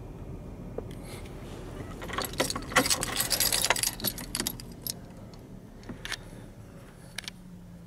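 A bunch of car keys hanging from the ignition jangling and clicking. The jangling is densest between about two and four and a half seconds in, and a few lighter clicks follow.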